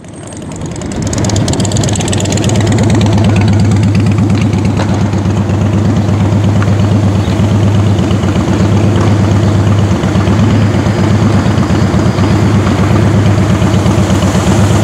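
A vehicle engine idling while stopped: a loud, steady low rumble with an even pulsing rhythm, fading in over the first couple of seconds.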